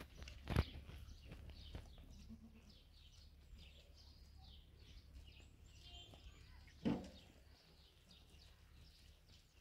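A mixed flock of sheep and goats grazing, with an occasional short bleat, one a little louder about seven seconds in.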